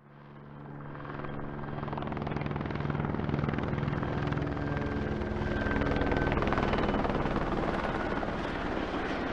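Helicopter flying over, its rotor chopping in a rapid steady beat over a turbine drone, growing louder over the first couple of seconds as it approaches and then holding close overhead.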